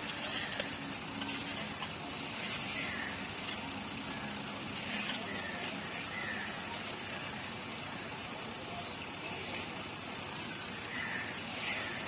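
Steady outdoor background noise with faint distant voices, broken a few times by short scrapes of a shovel blade scooping elephant dung off the dirt.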